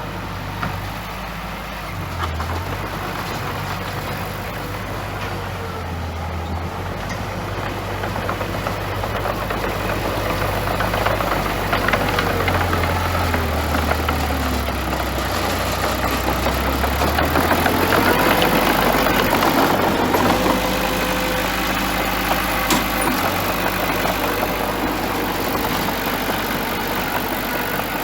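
Bulldozer's diesel engine running under changing load, its pitch shifting up and down and the sound growing louder through the middle, then easing off near the end.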